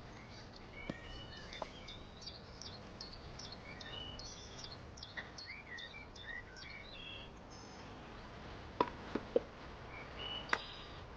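Small birds chirping and twittering, many short high calls overlapping. A few sharp clicks near the end.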